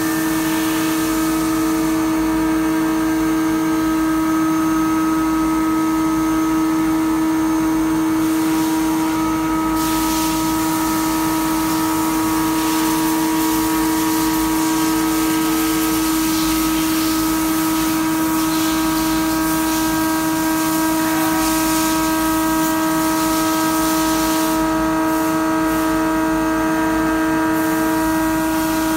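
Large gantry CNC milling machine cutting a metal plate: the spindle runs with a steady whine made of several held tones, over a hiss from the cut and the coolant spray that grows stronger through the middle.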